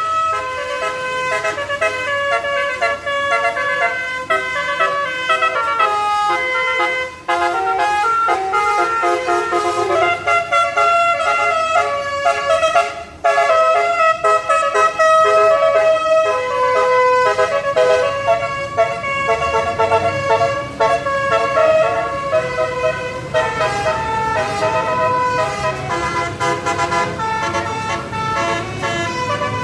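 Tour bus's basuri telolet horn playing a long, loud melody of changing notes over the bus engine's low running. The tune breaks off briefly twice, about 7 and 13 seconds in.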